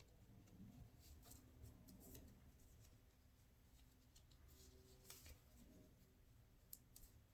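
Near silence: faint handling noises, a few soft clicks and rustles of the watch and its fabric NATO strap being handled, over a low room hum.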